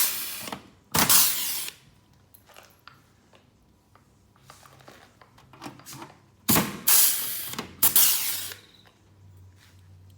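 Rivet gun setting pop rivets into the caravan's steel frame: short noisy bursts with sharp snaps, one group at the start and another about six and a half seconds in.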